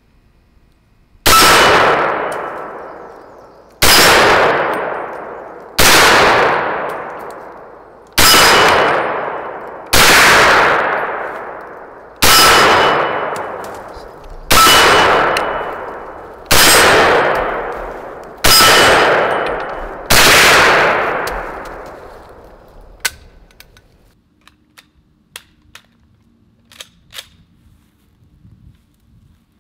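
M1 carbine (.30 Carbine) fired ten times at a steady pace, about one shot every two seconds. Each report trails off over roughly two seconds with the ring of struck steel plate targets. After the last shot come a few light clicks of the rifle being handled.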